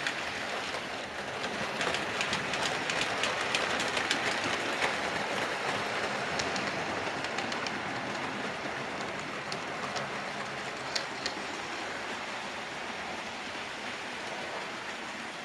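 Model railway train running on the track: a steady rattle of wheels on the rails with scattered clicks over the rail joints, loudest a few seconds in and then slowly fading.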